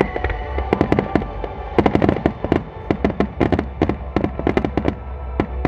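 Star mine fireworks going off in a fast, uneven string of sharp bangs from shells launching and bursting, thickest about two seconds in and again a little later.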